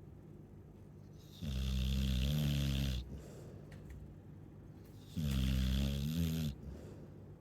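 Chow chow snoring: two long snores about four seconds apart, each with a wavering pitch, with quiet breathing between them.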